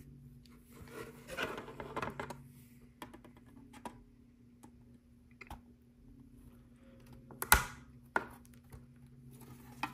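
Plastic LEGO Art panels being handled and pressed together: scattered small clicks and rustles of plastic, with one sharp, loud snap about seven and a half seconds in as the pieces are pushed home.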